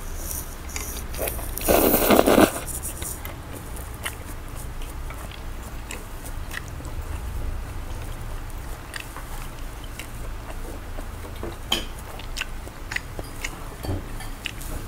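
A person slurping noodles loudly off chopsticks about two seconds in, then chewing, with scattered small clicks from the mouth and the chopsticks.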